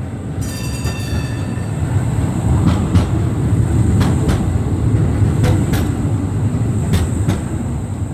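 Tram passing close by on street track: a steady low rumble that swells as it goes past, with sharp clicks in pairs as the wheels cross rail joints. A brief high ringing sounds about half a second in.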